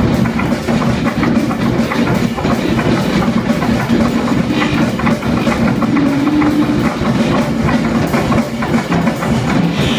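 Live free improvisation on guitar, turntable and drum kit: a dense stream of quick drum strikes over sustained low tones.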